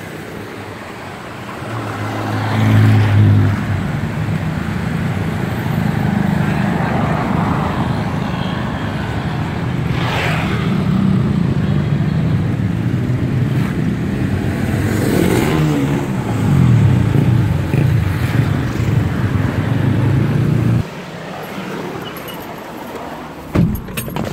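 Road traffic: motorbikes and cars passing close by over a steady low engine drone. The drone cuts off suddenly about twenty seconds in.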